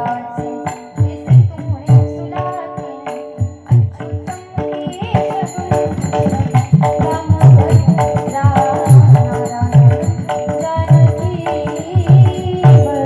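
Devotional kirtan accompaniment: steady held notes over a repeating rhythm of deep drum strokes and small jingling cymbals, with a wavering melody line in the middle.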